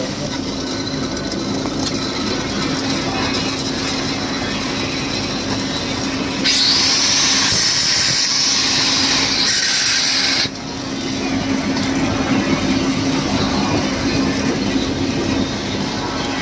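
Stick welding on a pipeline: the crackling hiss of the arc during the stinger (root) pass, over the steady hum of site machinery. A louder hiss starts suddenly about six seconds in and cuts off about four seconds later.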